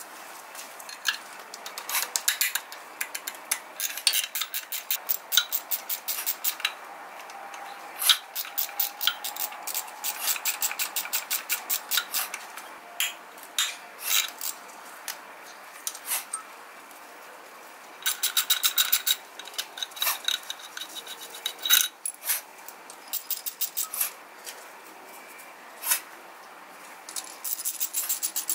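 Ratchet wrench clicking in short, quick runs, with metal tools clinking, while bolts at the front of the V6 engine are worked on to get at the timing belt.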